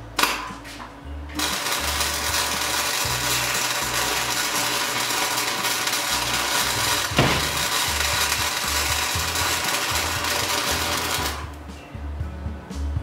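Harbor Freight Chicago Electric 220-volt MIG wire welder arc crackling steadily for about ten seconds as a bead is run. A short spurt comes first, and the arc cuts off sharply near the end.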